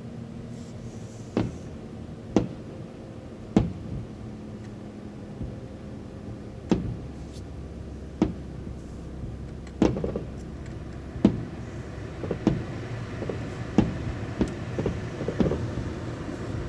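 Aerial fireworks shells bursting in a display, sharp booms that ring out, about a dozen of them spaced a second or two apart and coming faster in the second half, over a steady low hum.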